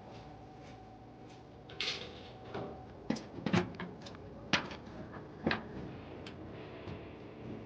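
Handling noises: a scattered run of sharp knocks and clicks, the loudest about three to five and a half seconds in, with a brief hiss about two seconds in, over a faint steady hum.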